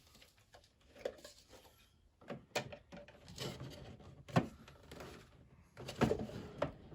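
Plastic Hot Wheels track pieces being handled and fitted together: a scatter of light clicks and knocks, with soft rustling in between.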